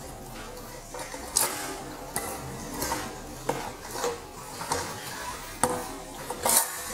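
Light metallic clicks and rattles, irregular, from a bicycle's chain, cassette and rear derailleur as the rear wheel is worked down out of the frame with the derailleur held back.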